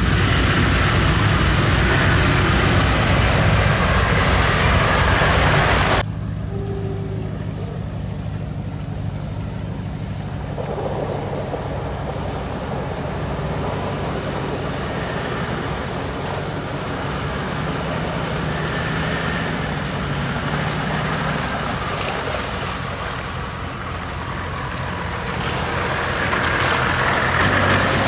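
Land Cruiser HDJ80's 4.2-litre straight-six turbodiesel working hard under load, with its 40-inch mud tyres churning and throwing up mud and water. The sound drops off suddenly about six seconds in, then the engine builds again and grows loudest near the end as the tyres spin in the mud.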